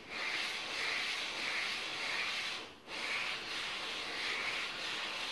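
Aluminium cylinder head of a Honda GX200-clone engine being slid by hand in a figure-eight over 180-grit wet-and-dry sandpaper: a steady gritty hiss that swells and fades with each stroke, breaking off briefly about halfway. It is the final honing of the head's gasket face toward a smooth, mirror-like finish after it has been shaved flat.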